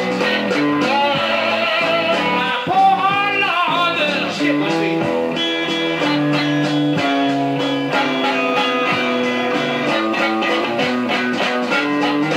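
Chicago blues band recording played from a vinyl LP: loud electric guitar with sliding, bending notes in the first few seconds, then steadier riffing over a regular beat.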